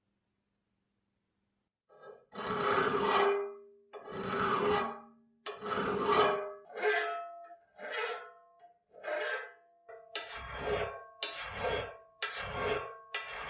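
Flat hand file rasping along the edge of a steel plate clamped in a bench vise: about a dozen separate strokes starting two seconds in, slow at first and coming faster near the end.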